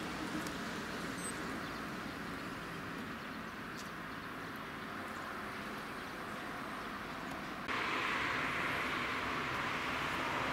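Steady hiss of outdoor background noise with no distinct events, jumping abruptly louder and brighter about eight seconds in.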